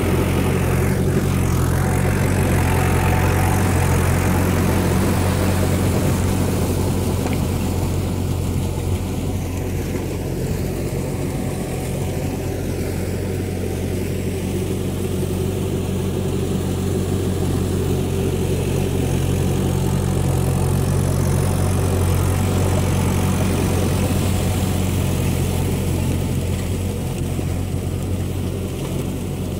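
Swaraj 843 XM tractor's three-cylinder diesel engine running steadily with a rotavator mounted behind it.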